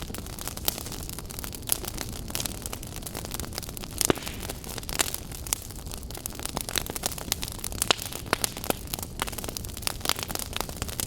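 Fire burning and crackling: a low steady rumble under irregular sharp pops and snaps, a few of them louder, about four seconds in and again near eight seconds.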